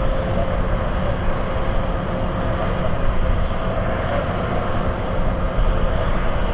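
Steady jet engine noise from airliners on the runway, a heavy low rumble with a faint steady hum above it.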